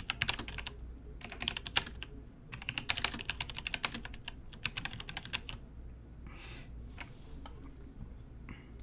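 Computer keyboard typing in quick bursts of keystrokes, stopping about five and a half seconds in.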